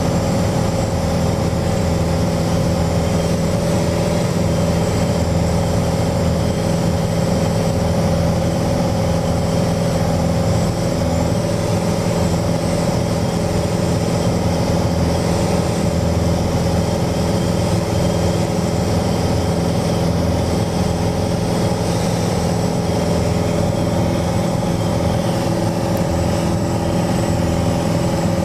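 Cabin noise of a Mooney single-engine piston airplane in flight: the engine and propeller run steadily at constant power, with airflow rushing past.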